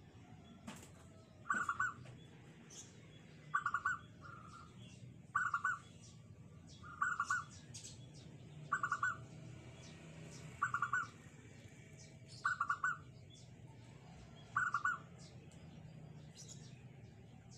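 Caged zebra dove (perkutut) cooing its short staccato song phrase over and over, eight times, about one phrase every two seconds, each a quick run of clipped notes. Faint high chirps of other small birds sound in the background.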